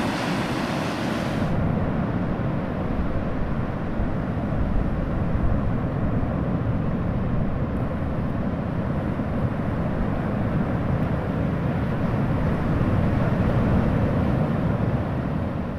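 Steady low rush of ocean surf against a rocky shore, its higher hiss dropping away about a second and a half in.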